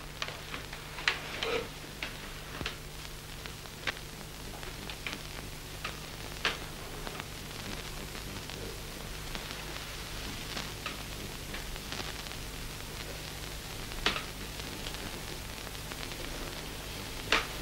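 Quiet soundtrack hiss with a steady low mains hum, broken by scattered faint clicks and ticks at irregular moments.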